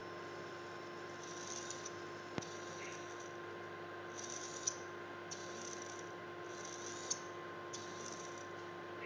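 Futaba S3001 hobby servo whirring in about five short bursts as its motor and gears swing the horn, driven by a 555-timer servo tester, over a steady electrical hum. A single click about two and a half seconds in.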